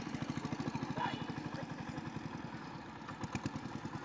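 A small engine running steadily at idle, a rapid even beat of about a dozen pulses a second.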